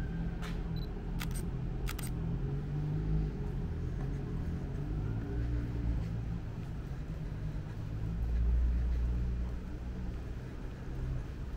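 Low, steady rumble of city traffic, with a vehicle passing and swelling louder about eight seconds in. A few sharp clicks come in the first two seconds.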